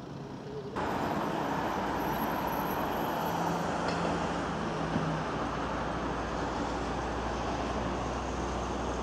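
Steady rushing noise and low rumble of a vehicle in motion, which jumps abruptly louder about a second in; a brief low hum joins it around the middle.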